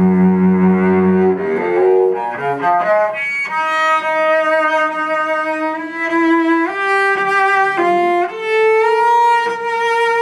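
Solo bowed cello: a low held note, then a quick rising run of notes about two seconds in, then long sustained notes that step up in pitch twice.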